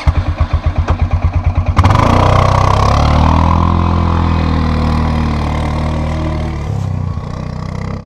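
A motor engine being cranked by its starter, about nine pulses a second, catching after about two seconds and running fast. It then eases slightly in level and stops abruptly at the end.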